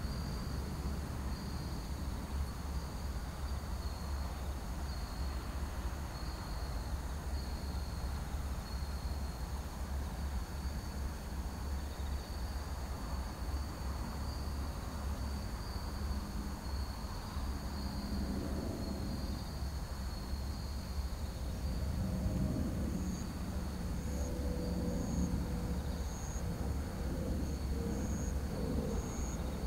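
Distant Airbus A380 with Rolls-Royce Trent 970 engines approaching: a steady low rumble, with humming engine tones coming in during the last third and growing slightly louder. Crickets chirp about once a second throughout.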